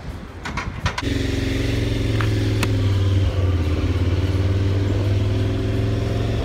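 Motorcycle engine running steadily at low revs, with a deep even hum that comes in about a second in. A few sharp clicks come before it.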